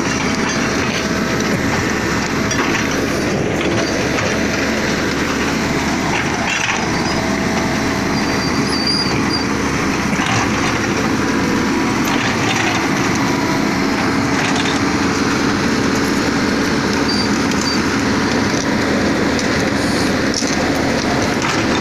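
Excavator's diesel engine running steadily as the machine works, with a few knocks scattered through.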